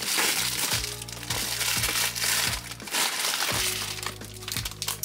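Plastic packaging crinkling and rustling as a parcel is torn open, heaviest in the first three seconds, over background music with a steady beat.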